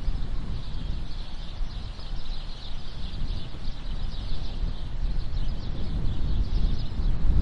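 Steady low outdoor rumble with a dense high chirping of birds over it; the rumble grows louder near the end.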